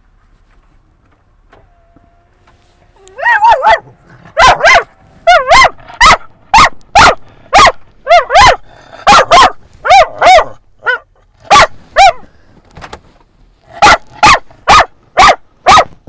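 A dog barking loudly in a fast run of short barks, about two a second, starting about three seconds in, with a brief pause near the end: it is barking at other dogs it has spotted.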